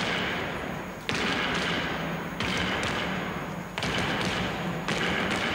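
Figure-skating program music played through the arena's sound system, with a strong accented hit about every second and a quarter, each one dying away.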